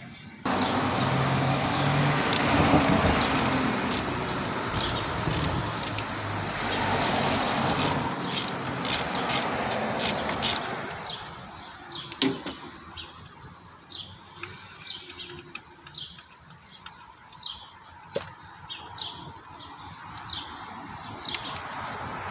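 A loud, steady rushing noise that starts abruptly about half a second in and dies down around the middle. Short, high bird chirps repeat throughout and stand out once the noise fades.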